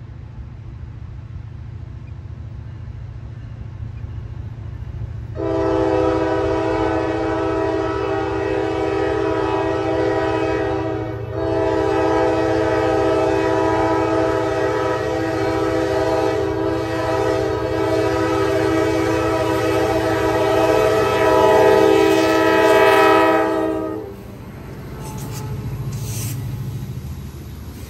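Diesel freight locomotive's multi-note air horn sounding for a grade crossing: a long blast of about six seconds, a brief break, then a second long blast held about twelve seconds, over the low rumble of the approaching train. When the horn stops, the GP40-3 locomotive and the loaded hopper cars rumble past close by.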